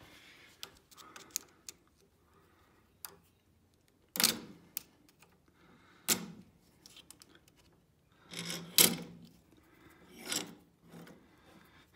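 Scattered metal clicks and clinks of a flathead screwdriver prying at the E-ring retaining clip on a Troy-Bilt walk-behind mower's front wheel axle and bracket, with a few louder sharp clacks spread through.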